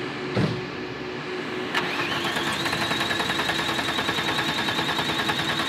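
A thump, then the starter of a VR6-swapped 1991 Volkswagen Jetta cranks the engine over with a steady whine and even pulsing, without the engine catching.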